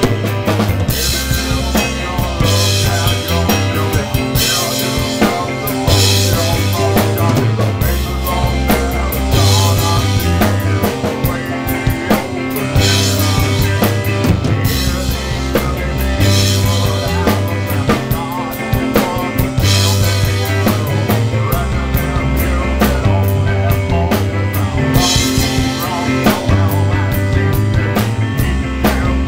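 Loud rock music with a drum kit and a bass line moving between a few low notes, with bright crashing accents about every three seconds.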